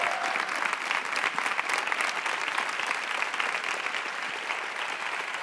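Studio audience applauding, dense and steady, slowly dying down toward the end.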